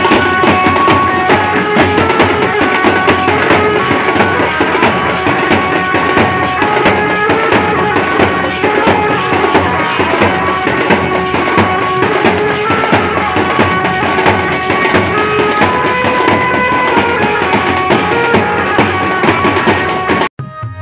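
Loud dance music with a driving drum beat under a melody. It cuts off abruptly near the end.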